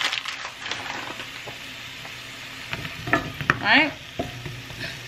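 Frozen Brussels sprouts sizzling in a little olive oil in a nonstick frying pan, with clicks and scrapes as they are stirred and moved about. A brief pitched sound, the loudest moment, comes about three and a half seconds in.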